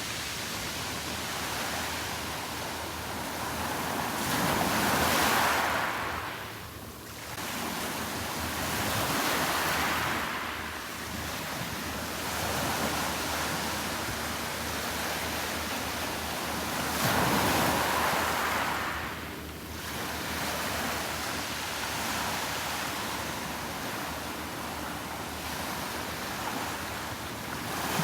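Sea waves breaking on a sandy beach, surging and falling away every several seconds.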